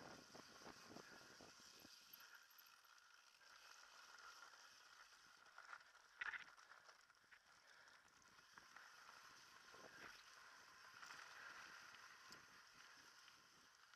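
Faint, muffled riding noise from a helmet-mounted camera on a mountain bike descending a dirt trail: a steady hiss of wind and tyres, with scattered knocks and rattles as the bike goes over bumps. The loudest knock comes about six seconds in.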